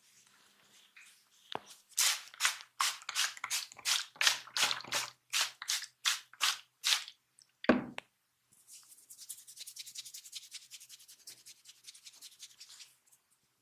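Hands massaging a head: about fourteen loud rubbing strokes on the hair and scalp, roughly three a second, then one sharp, heavier hit, then a fast, quieter run of rubbing strokes.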